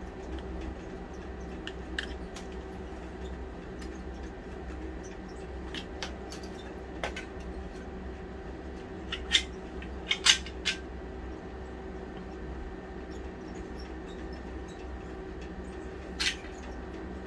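Caulking gun being handled and loaded with a tube of construction adhesive: scattered sharp clicks and knocks, loudest in a cluster about nine to eleven seconds in, with another near the end as the bead is started. A steady low mechanical hum runs underneath.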